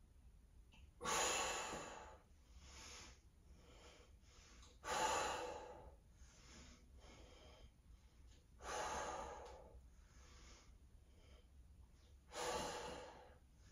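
A person breathing hard with exertion during a weights exercise: four loud, forceful exhales about every four seconds, with quieter inhales between.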